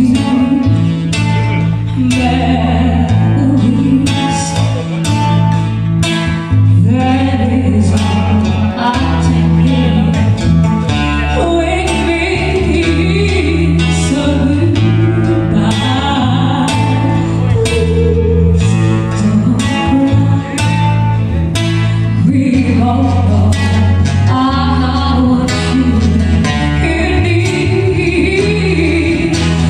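A song with a male voice singing over guitar, bass and drums, with a steady beat.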